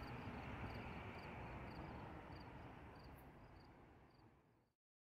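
Faint outdoor ambience: a soft steady hiss with insects chirping in short high calls, a few a second. It fades out to silence near the end.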